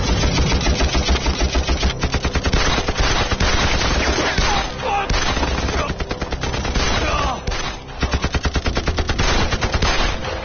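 Sustained machine-gun fire in rapid bursts, mixed with other gunshots, from a film battle soundtrack. It breaks briefly about eight seconds in, then one more rapid burst follows.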